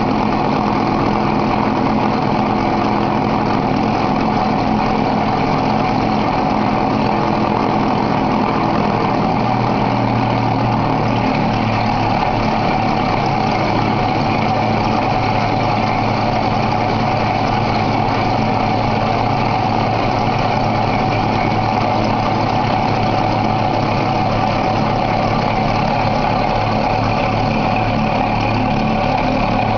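Glass grinding machine running steadily: the motor hum and rotating grinding lap under two spindle-held work holders make a constant steady drone with a grinding hiss over it.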